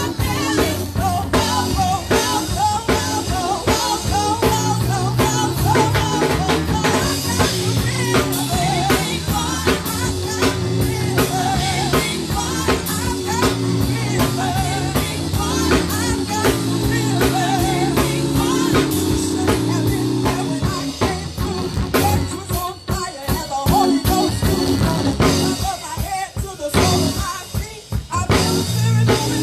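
Live gospel praise-band music: full drum kit, bass and guitar with singing voices, the drums keeping a steady beat. Near the end the band drops back to the drums alone for a few seconds, then the full band comes back in.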